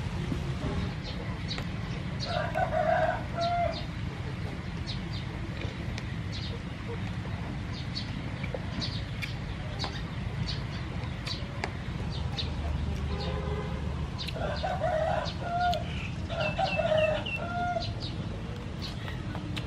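A rooster crowing twice, first about three seconds in and again, longer, around fifteen seconds in. Faint scattered chirps and a steady low hum run underneath.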